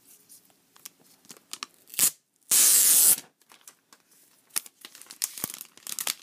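Plastic shrink-wrap on the iPad mini's box torn open by its pull tab: a short sharp tear about two seconds in, then a loud rip lasting about half a second. After it come small rustles and taps as the cardboard box is handled.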